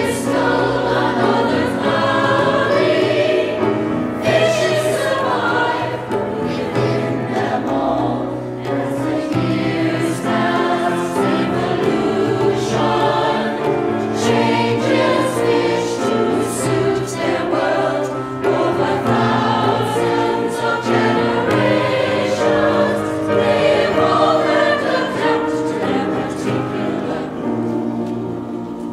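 A choir singing a song from an oratorio in English, with sustained sung lines; the words are about fish evolving and adapting to their particular pool.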